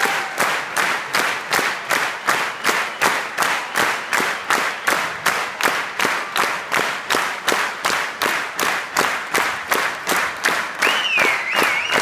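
Theatre audience clapping in unison, a steady rhythmic applause of about three claps a second. Near the end a high wavering tone rises from the crowd.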